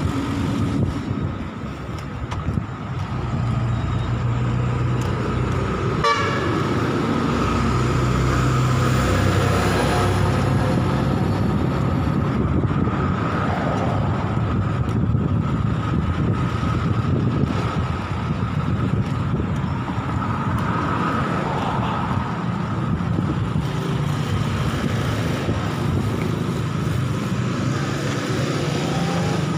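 Road traffic on a busy city street: vehicle engines running steadily as they pass, with a vehicle horn sounding.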